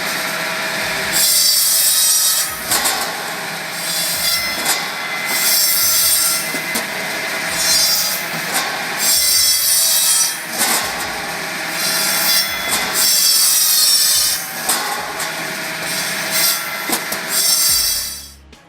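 Firewood machine running with a steady motor hum, its saw cutting into wood in repeated passes about every one and a half to two seconds.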